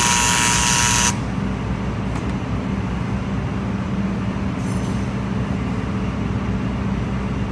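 Handheld electric rotary engraving tool running with a high, hissing whine that cuts off suddenly about a second in. A steady low machine hum continues underneath.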